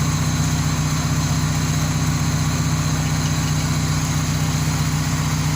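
Car engine idling steadily with the air-conditioning compressor engaged, while the AC system is being charged with refrigerant.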